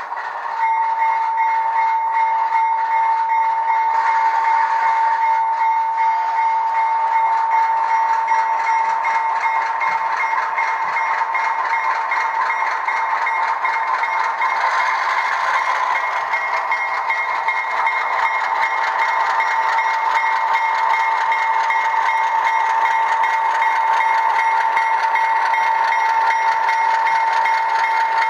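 Model locomotive sound decoder (ESU LokSound V4) playing an Alco RS-2 diesel engine sound through the model's small speaker, with no deep bass. It cuts in abruptly about half a second in and runs steadily, with a constant whine over the engine noise.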